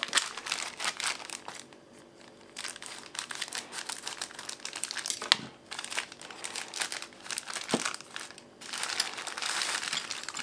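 Thin clear plastic bag crinkling and rustling as it is snipped open with scissors and pulled apart by hand, with a brief lull about two seconds in and a couple of sharp clicks in the middle.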